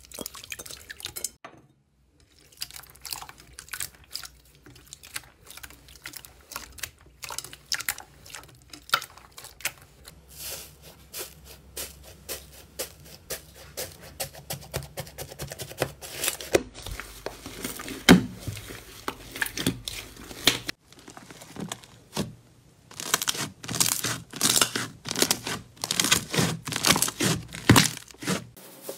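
Slime being poured, pressed and kneaded by hand, with dense, irregular crackling and popping and a few short pauses.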